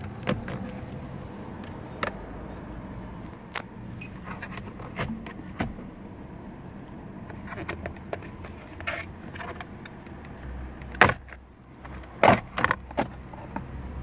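Scattered plastic clicks, taps and rattles from hands handling the steering-column parts around the clock spring (airbag spiral cable), over a steady low hum. The two loudest knocks come about a second apart near the end.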